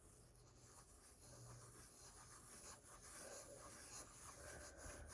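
Near silence with faint scattered soft clicks and rubbing: slime being stretched and poked by hand.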